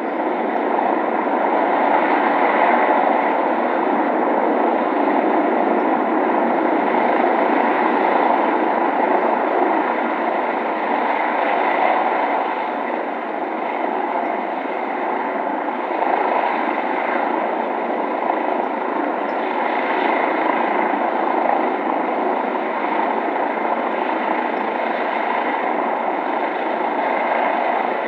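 City ambience with a police helicopter flying overhead: a steady, unbroken rotor and engine noise over the city background.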